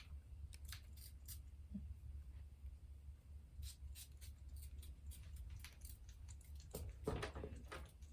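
Faint handling noises: scattered small clicks and rustles, with a louder rustle near the end, over a steady low hum.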